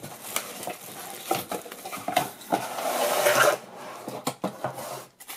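Handling of the keyboard and its packaging: scattered light plastic knocks and clicks, with a longer rustle a little past the middle.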